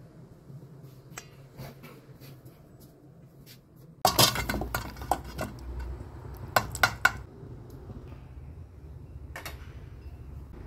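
Stainless-steel mixing bowl and pot clattering on a gas stove: a few light clicks, then a burst of sharp metallic clinks and knocks about four seconds in, over a low steady rumble.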